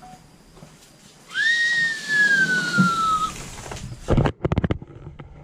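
A long whistled note that jumps up and then glides slowly down over about two seconds. About four seconds in comes a quick rattling run of clicks from the food truck's sliding service window being slid in its track.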